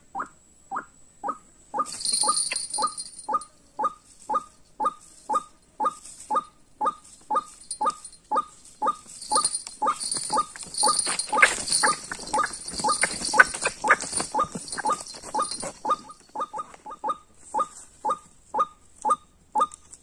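White-breasted waterhen calls: a short, clucking note repeated in an even rhythm, about two and a half times a second. From about two seconds in there is a high hiss above the calls, and around the middle a scuffle of wing-flapping.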